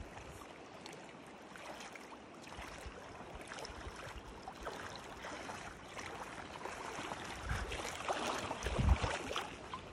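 Steady rush of a shallow river's current flowing over stones, with a few low thumps near the end.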